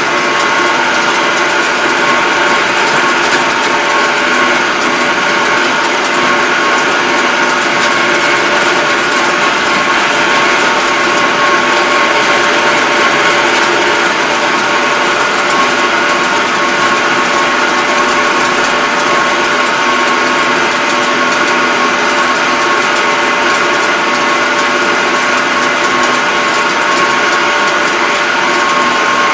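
Yanmar YT333 diesel tractor driving at a steady speed, heard from inside its cab: an even engine drone with a steady high whine over it.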